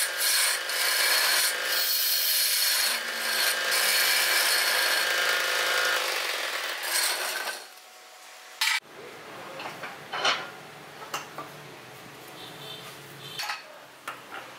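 Wood lathe turning a wooden cup blank while a hand-held chisel cuts into it: a loud, steady scraping hiss of the steel on the spinning wood. About seven and a half seconds in the cutting stops, leaving a quieter low hum with a sharp knock and a few scattered clicks.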